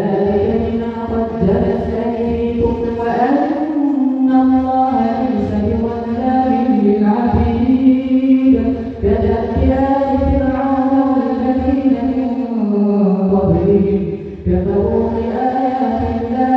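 A man's voice chanting Quranic recitation in Arabic in long melodic phrases with drawn-out held notes, pausing briefly between verses: an imam's recitation in tarawih prayer.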